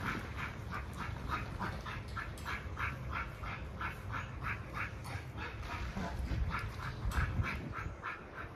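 A dog making quick, evenly repeated sounds, about four a second, keeping up a steady rhythm throughout.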